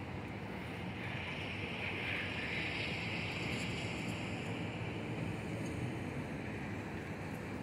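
Steady outdoor rushing noise, with a hiss that swells about a second in and fades out over the next few seconds.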